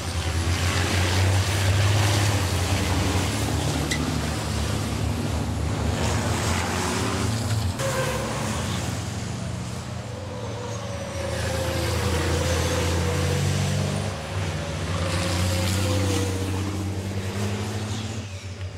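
Race trucks' turbo-diesel engines running hard at speed, the sound swelling and fading as they pass in two waves.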